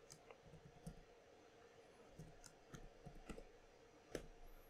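Near silence with faint, irregular computer keyboard keystrokes and mouse clicks as a batch number is typed in, over a faint steady room hum.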